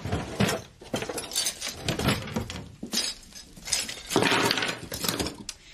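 Knives, forks and spoons clinking and rattling together in a wicker cutlery tray as it is handled, a run of metallic clinks and knocks that is loudest a little after four seconds in.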